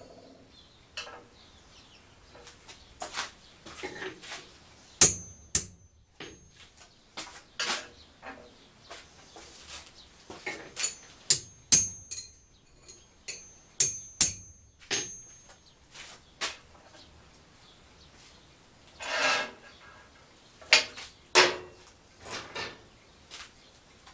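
Irregular knocks and clinks of small steel parts and hand tools being handled on a steel workbench. Several sharper metal-on-metal strikes ring briefly: one about five seconds in and a cluster between about eleven and fifteen seconds.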